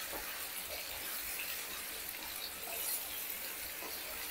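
Marinated boneless chicken pieces sizzling steadily in hot oil in a frying pan over a high flame, with a few faint knocks and scrapes of a spatula turning them.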